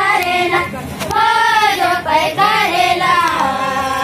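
A group of young girls singing a Gondi rela pata song together in unison, with long held, wavering notes.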